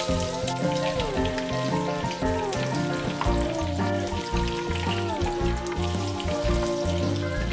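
Breaded king prawns sizzling and crackling as they fry in plenty of hot oil in a frying pan, with background music playing over it.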